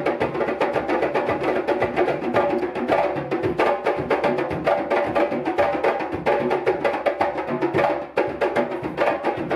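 Several djembe drums played together in a fast, dense interlocking rhythm, with a brief drop in the beat near the end.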